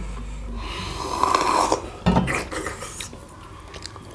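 Eating noises: a rough, rasping suck or slurp lasting about a second, then a sharp knock just after it and a few soft clicks.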